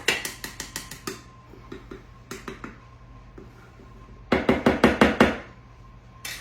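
Runs of quick knocks and taps from kitchen utensils while flour is measured out: a fast run at the start, a few softer taps, then the loudest run of about eight knocks about four seconds in.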